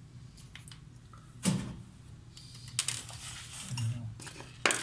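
Sharp metallic clinks and knocks from loose washing-machine parts being handled during disassembly: one about a second and a half in, a cluster near three seconds, and another near the end.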